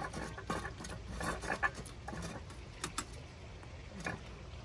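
Light clicks, taps and rustling from handling a wall lantern fixture and its wires as it is hung from the mounting bracket.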